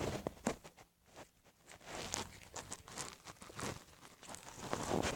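Freshly activated white-glue slime being mixed and worked, giving irregular sticky clicks and squelches.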